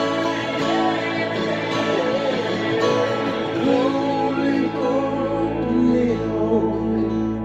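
Worship song on acoustic guitar, strummed, with a sustained or wordless sung melody over it.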